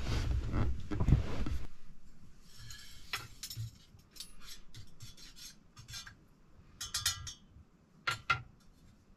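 Kitchen handling sounds: a scraping, rubbing noise for about the first second and a half, then scattered light clinks of cutlery against dishes and cookware.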